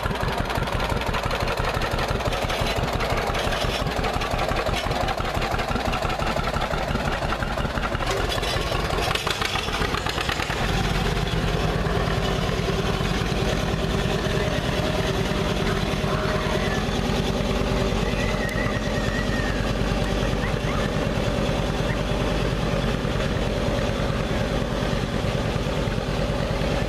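Tractor engine running with a fast, even pulse; about ten seconds in a louder, deeper and steadier engine note takes over.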